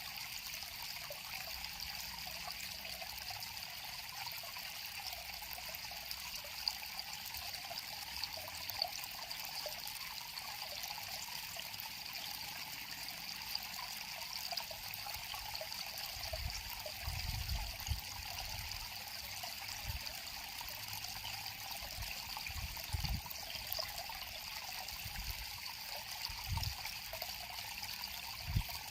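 River water flowing and trickling steadily, with a few brief low rumbles in the second half.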